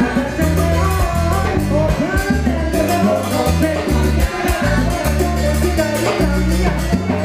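Salsa orchestra playing, with a bass line moving in short repeated notes under brass and percussion.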